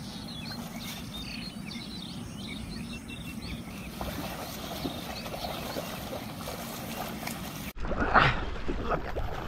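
Open-air wetland ambience: small birds chirping and twittering for the first few seconds over a steady low rumble. After an abrupt break near the end, a louder, irregular burst of sound.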